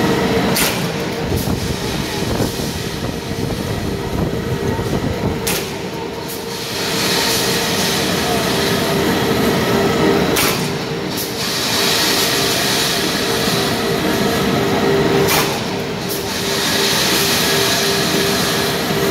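Bright bar machine with a multi-roll straightener running: a steady mechanical hum with a constant tone, a hiss that swells every four to five seconds, and sharp clicks now and then.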